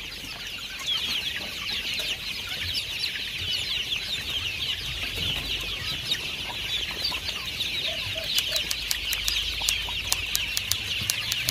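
A large flock of young kampung chickens, about seven to eight weeks old, peeping and cheeping all at once: a steady mass of many overlapping high, short calls.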